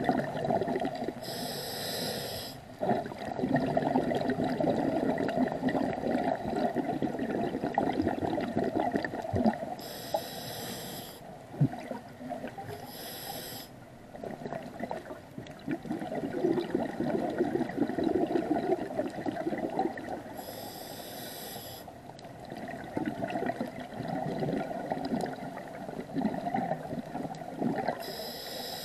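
Scuba regulator breathing heard underwater: a short hiss on each inhale, about every few seconds, between long low bubbling rushes of exhaled air.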